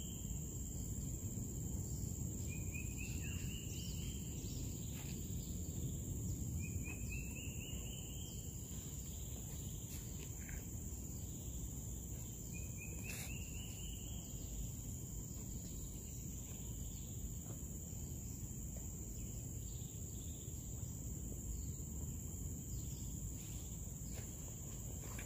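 Outdoor ambience: a steady high-pitched insect drone over a low rumble of background noise, with a short rising whistled call three times, a few seconds apart.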